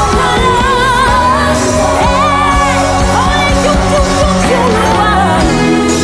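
A woman singing a gospel worship song live into a microphone, with vibrato on held notes, over a band's steady accompaniment.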